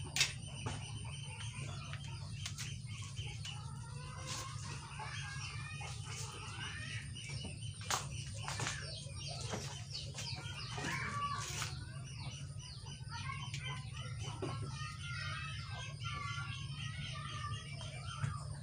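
Chickens clucking and small birds chirping in the background, over a steady low hum. Scattered sharp clicks and rustles come from electrical cable being handled and stripped.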